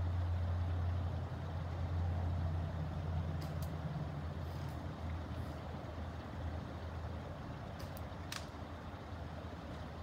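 Low, steady vehicle-engine rumble that slowly fades, with a few faint sharp clicks; the clearest click comes about eight seconds in.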